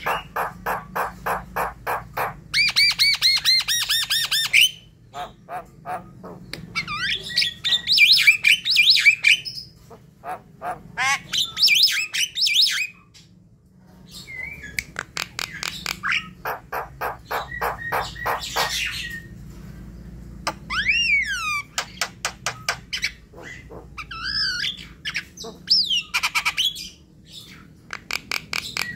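Javan myna singing in full voice: runs of fast, harsh repeated notes, about six a second, alternating with whistled glides and squawking phrases, with brief pauses between bouts.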